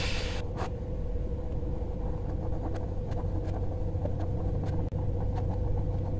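Pencil strokes scratching lightly on sketchbook paper, heard as faint scattered ticks over a steady low hum with a thin steady whine.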